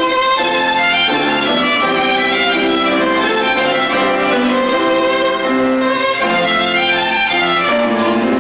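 Violin playing a slow classical line of held, singing notes, coming in suddenly right at the start.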